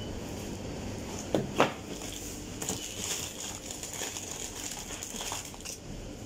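Plastic-bagged frozen chicken packs crinkling as they are handled and shifted in a chest freezer. There are two sharp knocks about a second and a half in.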